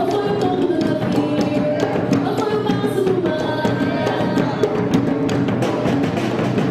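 Samba de roda played live: hand percussion keeping a steady, driving rhythm under singing voices.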